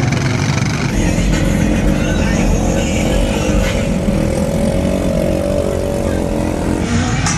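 Truck engines running with a steady low rumble, with people's voices over them.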